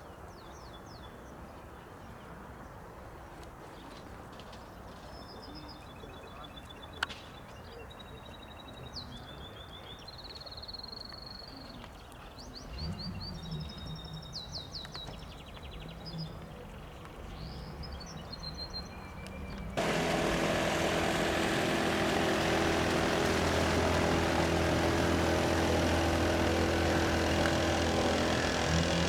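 Birds chirping over faint outdoor background noise. About two-thirds of the way in, the loud steady drone of an ATR 72-600's turboprop engines and propellers starts suddenly, with several steady low tones.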